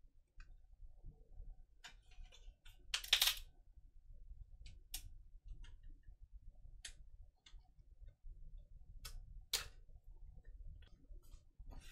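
Plastic CD jewel case being handled: scattered light clicks and taps of the case, with a louder short plastic clatter about three seconds in and another sharp click near nine and a half seconds.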